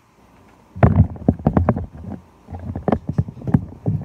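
Close handling noises: irregular thumps and rustles in two bursts, starting about a second in, as a bag of bait fish is set up in a vacuum sealer on a counter.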